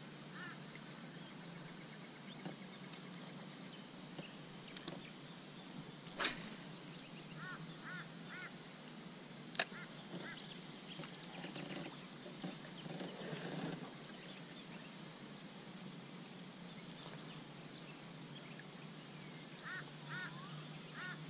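Faint bird calls: short calls in twos and threes, coming a few times, with a few sharp knocks in between.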